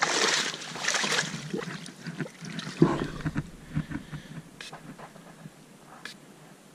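Water splashing in the shallows as a large fish is let go: two splashes within the first second or so, then fainter knocks and drips that die away.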